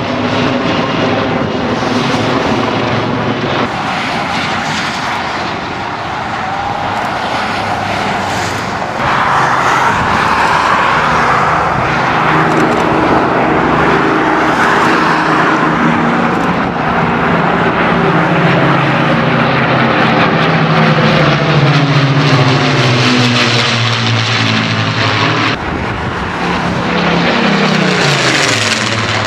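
A Westland Lynx helicopter flying overhead, then, after a cut about nine seconds in, the steady drone of piston-engined warbirds: an Avro Lancaster's four Merlin engines with two single-engined fighters in formation, their pitch slowly falling as they pass. Near the end a Spitfire's engine passes overhead, again falling in pitch.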